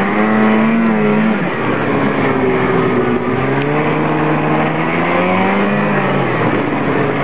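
Vehicle engines running and revving, their pitch rising and falling; near the start two engine pitches can be heard gliding across each other.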